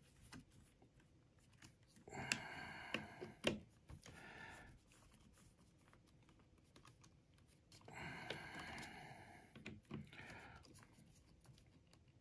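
Quiet handling noise from seating a replacement tweeter in a speaker cabinet and working its mounting screws with a hand screwdriver: a few short spells of scraping and rubbing, each up to about a second and a half, with small clicks in between.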